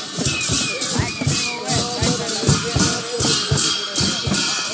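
Tibetan Buddhist lama-dance music: large frame drums beaten in a steady quick rhythm, about three strokes a second, with a hissing cymbal shimmer over each beat.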